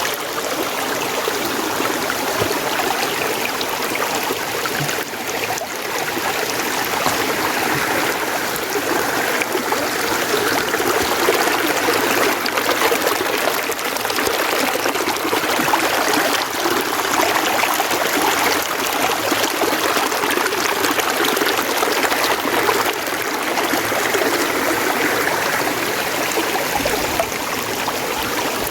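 Mountain stream running steadily, a continuous rush of flowing water.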